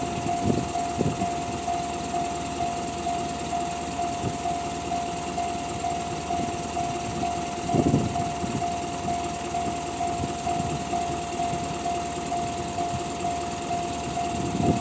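Japanese railway level-crossing warning bell, the Tohoku-type electronic tone, ringing in an even, rapid repetition. Beneath it runs a low rumble with a few louder thumps, the loudest about eight seconds in.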